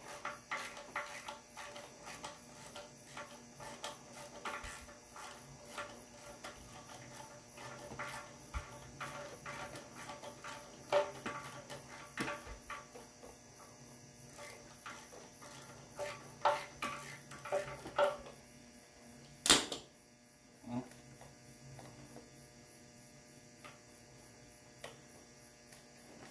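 Irregular metallic clicks and clinks of hand tools working the bolts along a tractor engine's oil pan, with one sharper clack about two-thirds of the way through, then quieter. A faint steady hum runs underneath.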